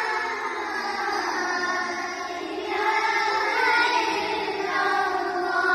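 Boys' voices chanting the Islamic call to prayer (adhan) together, holding long drawn-out melismatic notes that slide between pitches, with a change of note about halfway through.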